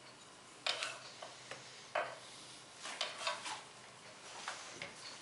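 A few short, quiet rasps, about a second apart, as a channel knife cuts spiral grooves into the skin of a yellow squash.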